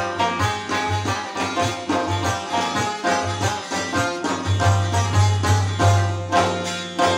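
Chitrali folk instrumental: an Afghan rabab and a Chitrali sitar plucking a quick repeating melody together over a steady frame-drum beat. The drum beats come through stronger from about four and a half seconds in.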